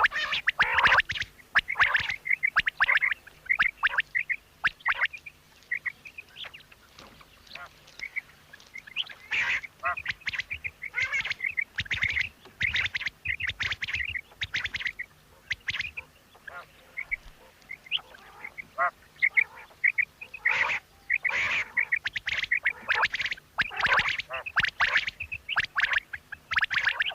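Quail calling over and over: short, sharp calls in quick clusters, with quieter stretches a few seconds long between the busier bouts.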